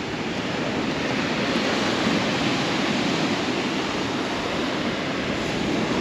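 Sea surf breaking and washing up a pebble beach: a steady rush that swells and eases slightly.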